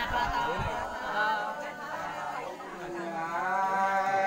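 Unaccompanied sli, the Nùng folk song, sung in long drawn-out notes that waver slowly in pitch.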